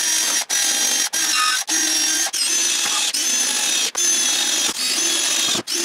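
Cordless drill running under load into a wooden trailer spar, pre-drilling for or driving 2.5-inch drywall screws, with a high whine over a rattling grind. The motor runs almost without a break, cut by very brief pauses roughly every half second to a second.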